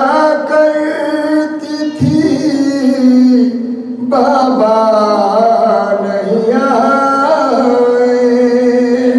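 A man's solo voice chanting a slow melodic recitation into a microphone. He holds long notes with ornamented turns, pausing for breath between phrases about two and four seconds in.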